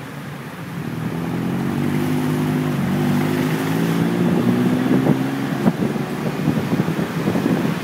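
Traffic noise from a moving vehicle: an engine hum climbs in pitch and level over the first few seconds, holds, and fades about five and a half seconds in, over steady road and wind noise on the microphone.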